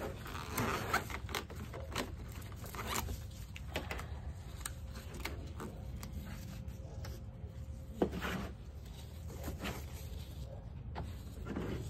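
Plastic screw cap being twisted off a gallon bleach jug and the jug handled: scattered short plastic clicks and scrapes, with one sharper click about eight seconds in, over a steady low rumble.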